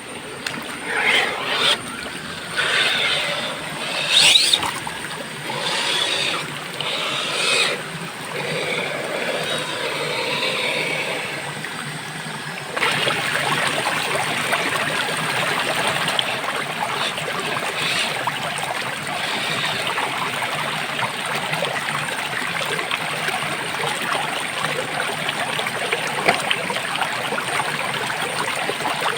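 A small electric motor whines up and down in short bursts over the first few seconds. Then, about thirteen seconds in, a steady rush of flowing water sets in suddenly and carries on, like a stream or small cascade.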